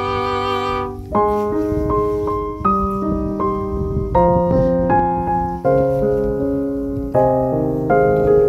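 Background music: slow piano chords, each struck and left to ring, a new one every second or so.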